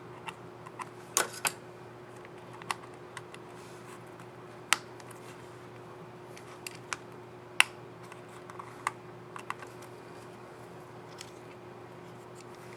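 Small plastic clicks from a laptop keyboard's keycap and scissor mechanism being handled, snapped into place and pressed, at an irregular pace with about fifteen clicks. A few of the clicks are sharper and louder than the rest. A faint steady hum runs underneath.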